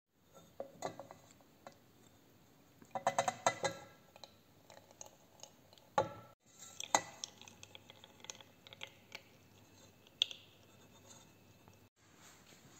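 Scattered clinks and taps of a stainless frying pan against a glass beaker while rendered chicken fat is poured off. A cluster of ringing clinks comes about three seconds in, and a sharper knock about six seconds in, followed by a few lighter clinks.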